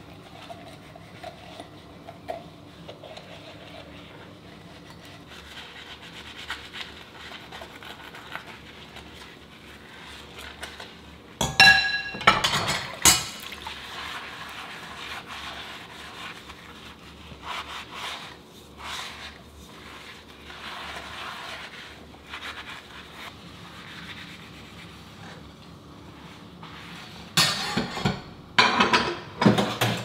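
Dishes being washed by hand: a soapy sponge rubbing over ceramic plates in a sink, with dishes clattering and clinking about twelve seconds in and again near the end.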